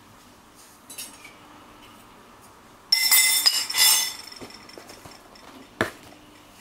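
Dry muesli poured from its box into a ceramic bowl: a loud rattle with ringing clinks lasting about a second, starting about three seconds in. A single sharp knock near the end.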